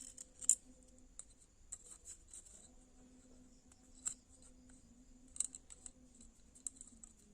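Scattered light clicks and short scratches of small parts being handled and worked by hand, the sharpest about half a second in, over a faint steady hum.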